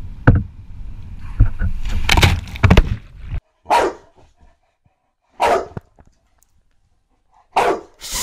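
Wind buffeting the microphone over rushing surf, with a few sharp thumps, for the first few seconds. Then a boxer dog gives short single barks about every two seconds, four in all, play-barking at a feather toy.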